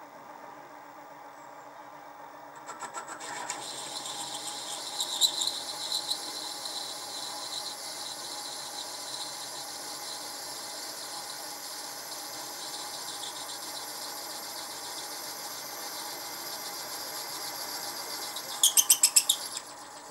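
Mini mill spindle running at about 440 rpm, with a reamer cutting into the bore of a model steam engine crank. From about three seconds in there is a steady high squeal with fine chatter. Near the end comes a quick run of loud chatter, then the squeal stops.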